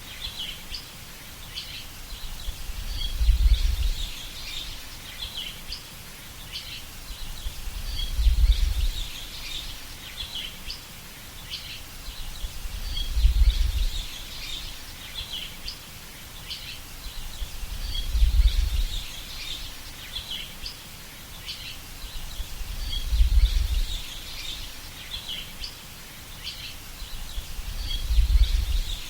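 Birds chirping and twittering continuously. A low rumble swells for about a second every five seconds, six times in all.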